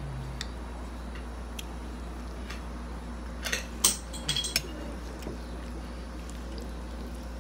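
Metal fork clinking and scraping against a plate of spaghetti, with a few faint ticks and then a cluster of sharper clinks a little past halfway.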